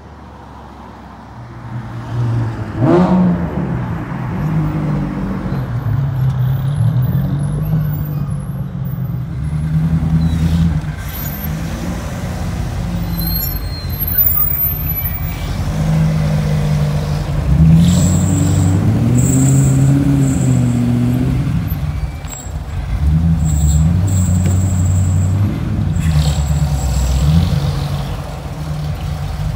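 Ford GT40's V8 engine running at low revs as the car creeps along, with a rising rev about three seconds in and another rise and fall in pitch around the middle.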